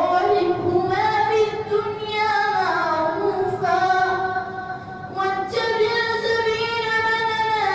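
A young boy chanting the Quran in tajweed style into a microphone, in long melodic phrases with drawn-out, ornamented held notes. A short breath pause about five seconds in, then the next phrase begins.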